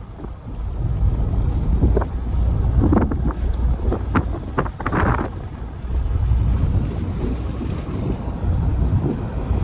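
Wind buffeting the microphone: a steady low rumble with several louder gusts.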